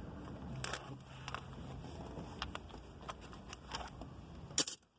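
Scattered light clicks and handling noises of hand tools, as a 6 mm socket is put to the ignition switch's mounting bolts. A sharper cluster of clicks comes near the end, then the sound cuts off suddenly.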